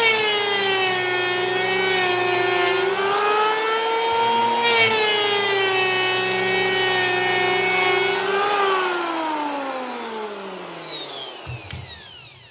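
TOPSHAK handheld electric planer running and shaving rough-sawn oak at a 1/32-inch depth of cut, two passes of cutting hiss over the motor's whine, which sags in pitch as the blades bite and recovers between passes. The motor is then switched off and winds down with a falling whine that fades away near the end.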